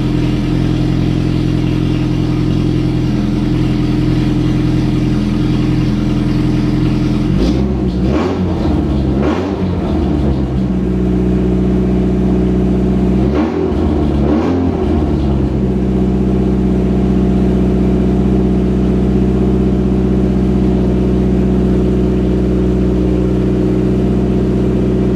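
Rover 200 BRM's four-cylinder engine running at a steady idle after standing for a while, revved briefly twice, about eight seconds in and again about fourteen seconds in, before settling back to idle.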